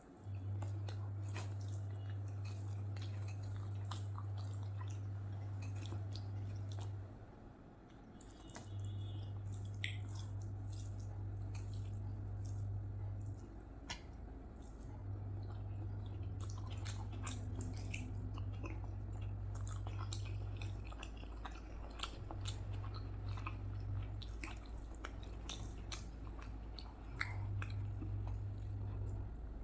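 Close-miked chewing of rice and curry, with wet squishy mouth sounds and scattered small clicks and smacks. A steady low hum runs beneath it in several long stretches, stopping and starting again a few times, and is the loudest thing present.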